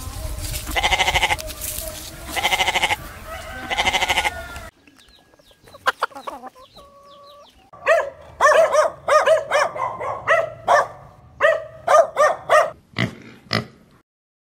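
Farm animals calling: three drawn-out, bleat-like calls in the first few seconds, then after a short lull a quick run of short calls, several a second.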